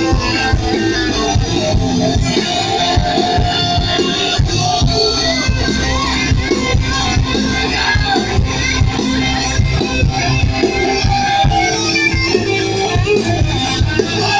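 Rock band playing live through a stage PA: electric guitars over bass, keyboard and a steady drum-kit beat.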